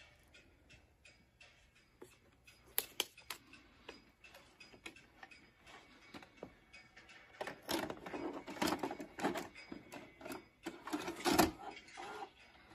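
Handling noise: faint scattered clicks, then about seven seconds in a run of louder, irregular clicks and rustles, with one sharp knock near the end.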